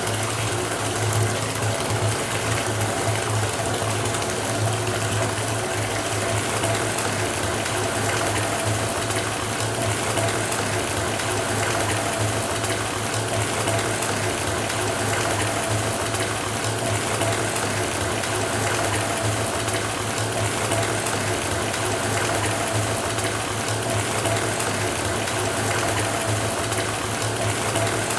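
Water running from a faucet into a bathtub as it fills, a steady rushing pour. Under the water there is a constant low hum and a faint steady tone.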